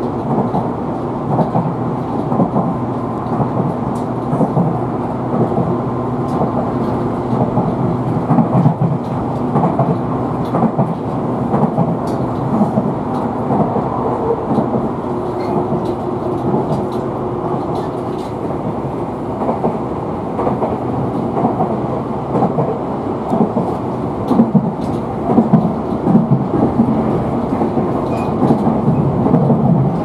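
Running noise of a Tobu Skytree Line express train heard from inside the passenger car: a steady rumble of wheels on rail with scattered light clicks over the track and a few faint steady tones.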